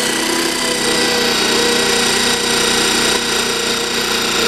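Cordless impact driver running steadily with a fast hammering rattle, its 6.5 mm carbide arrowhead universal bit grinding into porcelain tile.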